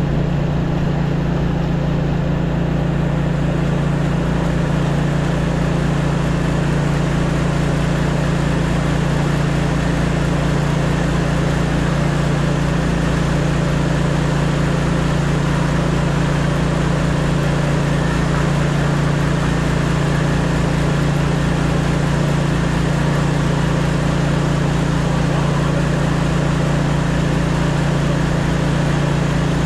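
Engine running steadily at one constant speed, a loud, even hum that neither rises nor falls.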